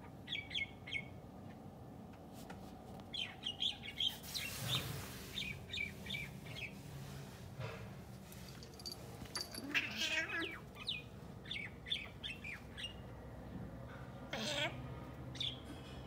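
Arabian Mau cat chattering at a bird: groups of short, high chirps in bursts, with a louder rising chirp near the end. There is a brief rustling hiss about four seconds in.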